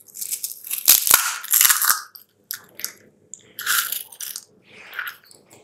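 Fried ready-made Anu pani puri shells crunching and crackling as they are crushed between the fingers into a small bowl. A long crisp crunch over the first two seconds, then two shorter ones later: the shells are fried crisp.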